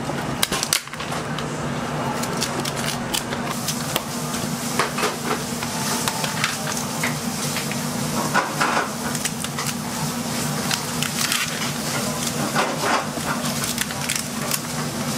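Kitchen scissors snipping and crunching through cooked king crab shell, with irregular clicks and clatter of shell on metal trays, over a steady low hum.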